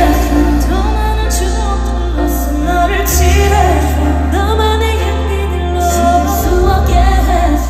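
Live K-pop ballad: a four-member girl group's women's voices singing over a band track with a heavy, steady bass, heard through an arena's PA system.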